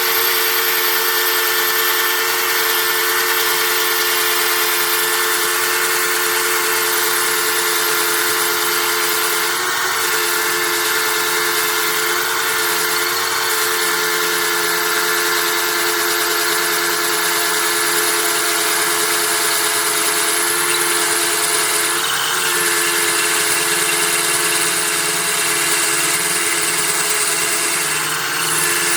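Power drill running steadily, driving a 5/16-inch Black & Decker glass and tile bit as it grinds a hole into ceramic tile.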